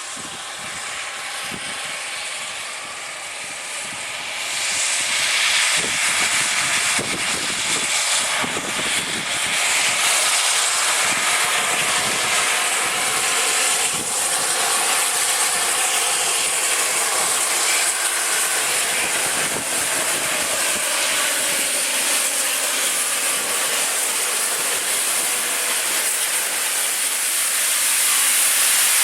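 Steam locomotive hissing steam: a loud, steady hiss that swells about four seconds in and grows a little louder near the end.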